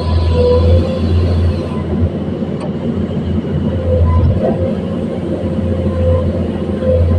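Komatsu PC210-10 excavator's six-cylinder diesel engine running steadily under working load, with a deep hum that swells and eases as the hydraulics work.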